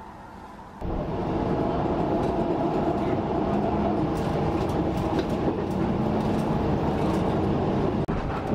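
Inside a moving commuter train: the steady rumble of the wheels on the rails, with a hum and scattered clicks, starting abruptly about a second in after quiet room tone.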